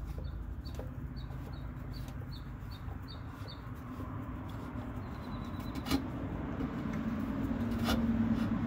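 A bird chirping in a quick run of short high calls, about three a second, for the first few seconds, over a steady low hum. Two sharp clicks come later, from a hand working on the car's oil filter housing.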